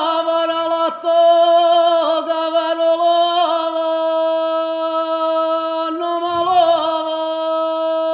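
Sicilian street vendor's cry (abbanniata): a lone unaccompanied voice sings out long drawn-out notes praising his lettuces. The last note is held steady for several seconds.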